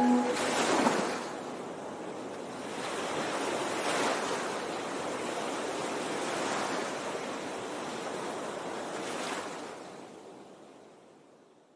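Rushing water noise picked up by a camera underwater, swelling and easing four times, about every three seconds, then fading out at the end.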